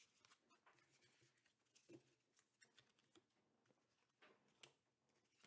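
Near silence, with a few faint, brief taps and clicks from trading cards being handled and laid down on a table.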